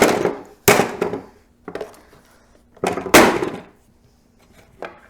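Hard plastic speaker casing being struck and broken apart: a few sharp knocks and cracks, three loud ones with the loudest about three seconds in, and a couple of lighter ones between.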